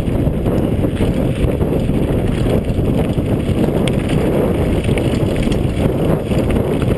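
Wind buffeting the microphone of a camera on a mountain bike descending a dirt trail at speed, a steady loud rumble over the tyres rolling on dirt, with a few faint clicks and rattles from the bike.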